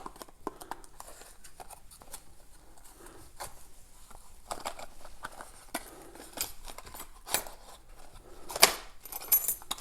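An American Lock 1106 padlock, its keys and packaging being handled: scattered small clicks and rustles, with a sharper click about eight and a half seconds in.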